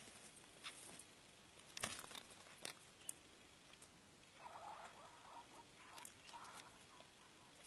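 Chukar partridges foraging in grass: faint scattered clicks and rustles, with two brief soft calls, one a little past halfway and one about six seconds in.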